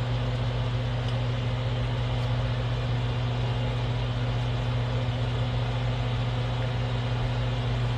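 A steady low machine hum with an even hiss behind it, unchanging throughout.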